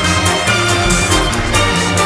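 Background music with a steady electronic dance beat and synthesizer tones.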